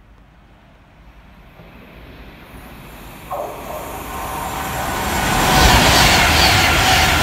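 Avanti West Coast express train approaching and running past the platform, its rumble and rail noise growing steadily louder. A steady tone joins suddenly about three seconds in, and the sound is at its loudest as the coaches go by near the end.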